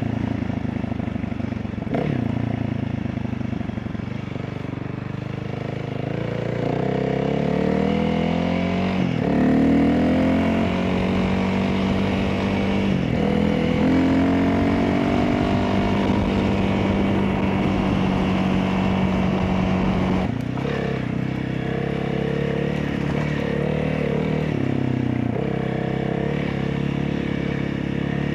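Honda CRF300L single-cylinder engine with an opened airbox, ECU tune and LeoVince exhaust, running under throttle. Its pitch climbs and drops several times, with one sudden drop about two-thirds of the way through.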